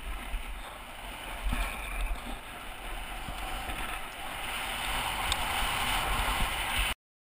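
Wind rushing over the microphone and the hiss of sliding fast over snow, growing louder as speed builds, with a few light knocks. Cuts off suddenly near the end.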